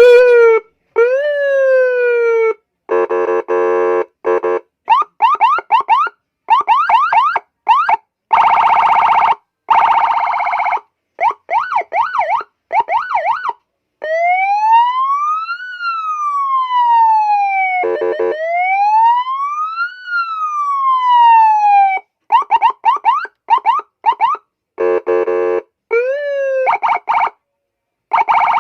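A 200-watt police-style electronic siren sounding through a Federal Signal speaker, switched from tone to tone. It runs quick falling chirps, a harsh buzzing horn tone, fast yelps, and in the middle a slow wail that rises and falls twice, with brief cut-offs between the patterns.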